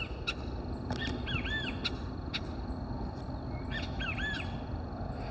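Birds calling: short arched notes in groups of two or three, about a second in and again about four seconds in, over a steady low rumble of background noise.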